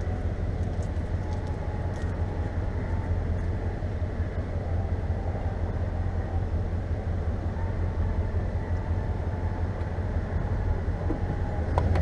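A vehicle's engine idling steadily, a low rumble heard from inside the cab, growing a little louder near the end.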